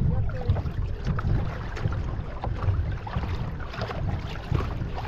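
Seawater lapping and splashing against a sea kayak's hull, with scattered small knocks and splashes. Wind rumbles on the microphone underneath.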